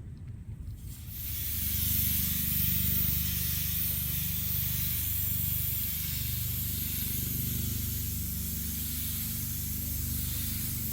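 Automotive paint spray gun laying down white basecoat: a steady hiss of atomised air and paint that starts about a second in, with a low steady hum underneath.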